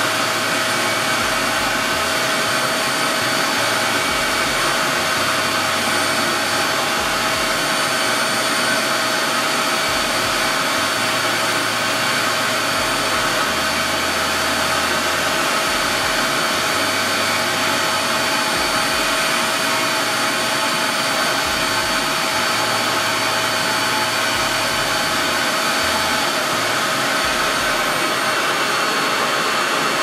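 RevAir reverse-air hair dryer running steadily. Its base unit pulls air through the hose and wand, drawing a section of hair inside to stretch and dry it. The sound is a constant rush of air with a steady motor whine over it.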